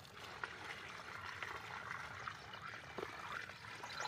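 Water pouring steadily from a metal bucket into the upright suction hose of a diesel water pump, filling it with water to prime the pump.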